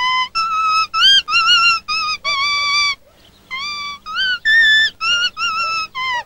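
A folk tune played on a leaf held against the lips: a run of high, reedy, whistle-like notes with slides between them, in short phrases broken by a brief pause about three seconds in.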